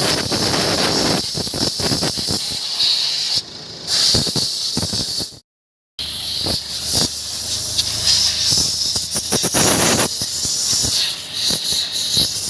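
Steady hiss with gusty rumbling, like wind buffeting the microphone. It is broken by a brief dead silence about five and a half seconds in.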